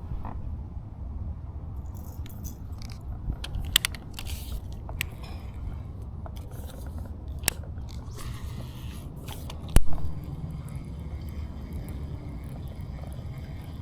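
Scattered scrapes, rustles and clicks with a sharp knock about ten seconds in, over a steady low rumble.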